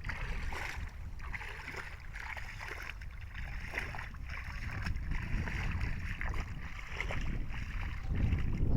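Muddy water sloshing and splashing as fish are caught by hand in a shallow pit, with a low rumble of wind on the microphone.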